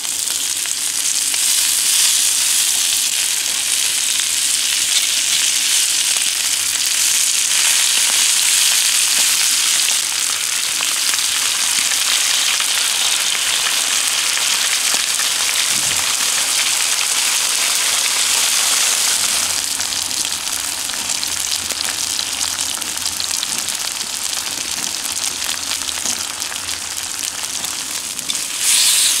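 Thin slices of marbled beef sizzling and frying in butter on a hot cooking plate: a steady, hissing sizzle that is strongest in the first ten seconds as the raw slices go down. It eases a little later on, with a brief louder flare near the end as a slice is turned with tongs.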